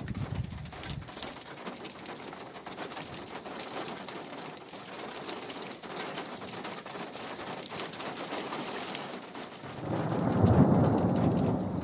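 Rain falling steadily, pattering on a surface. About ten seconds in, a loud low rumble of thunder swells up and keeps rolling.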